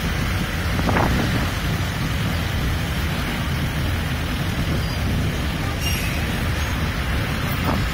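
Steady wind noise on the microphone over the rumble of road traffic on the bridge, with a vehicle going by about a second in and again near the end.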